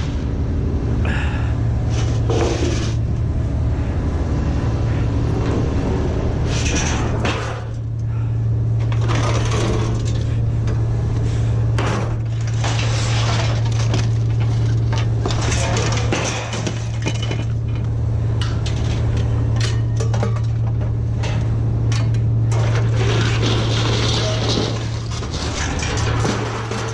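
Scrap metal clanking and clattering as pieces are handled and tossed, many irregular clinks and knocks, over a steady low hum.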